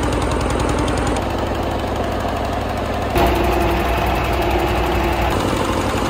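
Boat engine of a wooden motorboat running steadily under way, a rhythmic knocking throb, with water churning in the wake. The sound changes abruptly about one and three seconds in.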